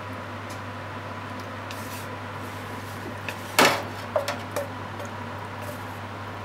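A steady background hum, then a frying pan clattering once loudly and knocking three more times, lighter, against the plate as it is tipped to slide fried onions off.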